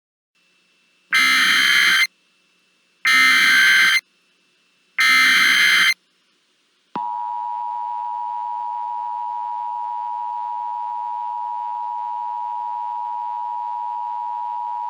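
Emergency Alert System alert opening: three one-second bursts of the SAME header's digital data squawk, each two seconds apart. About a second later the EAS two-tone attention signal starts, a steady tone held for about eight seconds.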